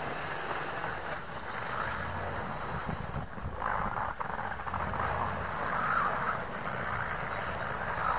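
Toyota Land Cruiser 100 SUV driving slowly over a snowy track, its engine running steadily and growing a little louder as it comes closer.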